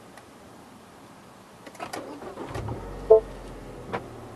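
A 2012 MINI Cooper Countryman S being started from inside the cabin: a few light clicks, then its turbocharged four-cylinder engine catches about two and a half seconds in and settles into a low steady idle. A short electronic chime sounds just after the engine starts.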